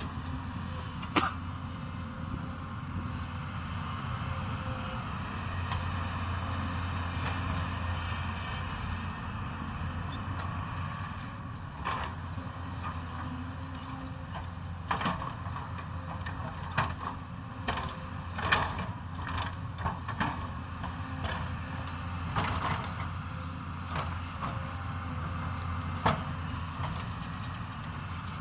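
Hyundai 220 hydraulic excavator's diesel engine running steadily while it digs, with scattered sharp knocks and clanks, most of them in the second half.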